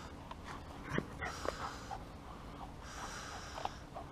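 A poodle breathing hard and snuffling at close range while it noses and nips at a man's sandal. Two soft breathy spells, near the start and about three seconds in, with a few faint short ticks between them.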